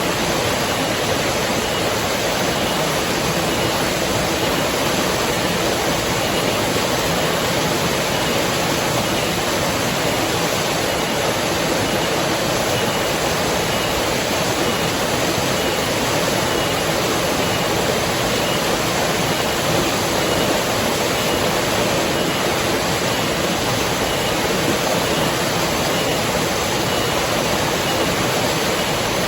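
Flowing river water: a steady, even rushing that does not change in level.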